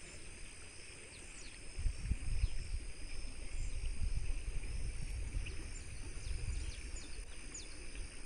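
Outdoor ambience of a steady insect chorus, with a low uneven rumble of wind on the microphone from about two seconds in and a few faint, short chirps.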